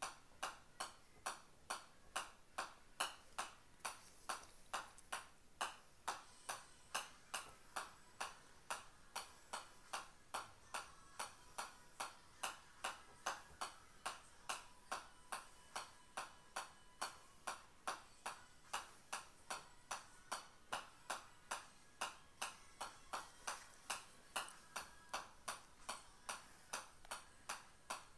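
Golf ball bouncing on the face of a pitching wedge, a short metallic tap with each hit. The taps keep a steady rhythm of about two and a half a second.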